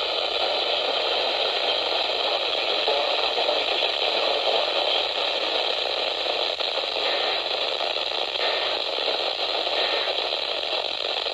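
Weather radio receiver giving out a steady static hiss with no station voice coming through.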